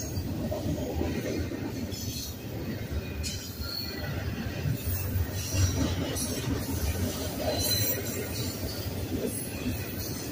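Double-stack container freight train passing at speed: a steady rumble of steel wheels rolling over the rails, with brief high-pitched squeals now and then.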